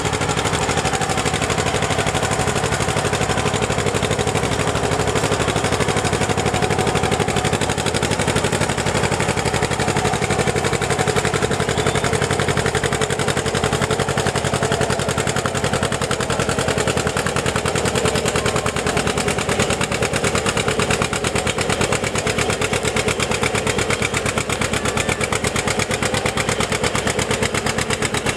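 1949 John Deere two-cylinder tractor engine working hard under load while pulling a weight sled. Its exhaust gives a steady, rapid popping beat.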